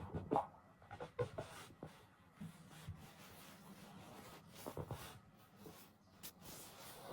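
A person making quiet, wordless babbling mouth sounds: short mumbles broken up by lip smacks and clicks.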